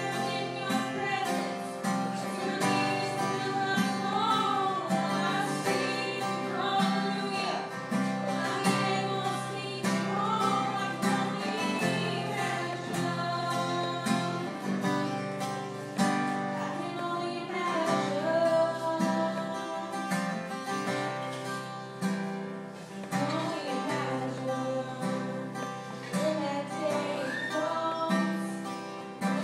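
A woman singing a song into a microphone, accompanied by a strummed acoustic guitar.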